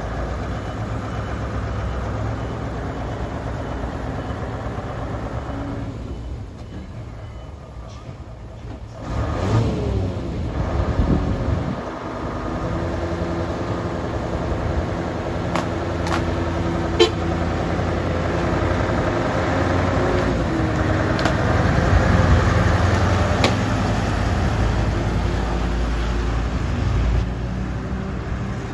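Mitsubishi Fuso 8DC11 V8 diesel engine of a twelve-wheel self-loader truck running, then revving and pulling away, growing louder in the second half.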